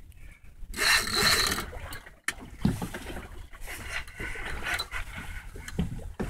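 Heavy conventional fishing reel and bent rod worked under the load of a big fish, a rasping burst about a second in followed by scraping and rubbing with many short ticks.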